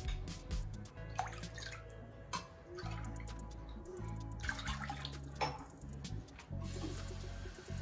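Water poured from a cup into an empty metal kadhai, splashing in a few short pours, the longest about halfway through, over background music with a steady low beat.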